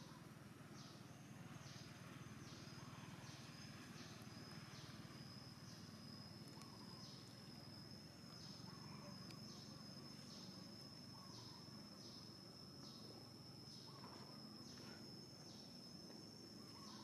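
Faint forest ambience: an insect chirping in short high buzzes a little more than once a second, joined about four seconds in by a steady high insect whine, over a low rumble.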